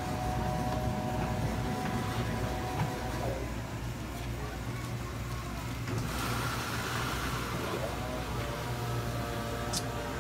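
Steady low hum of running machinery, with faint steady higher notes above it and some indistinct voices.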